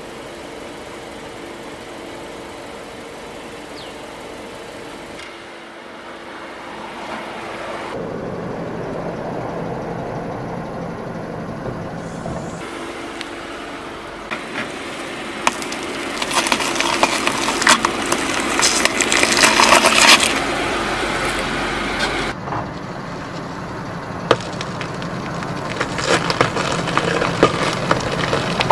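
Car engine running slowly, then a tyre rolling over and crushing brittle objects: a dense run of cracking and crunching that is loudest about two-thirds of the way through, with scattered cracks near the end.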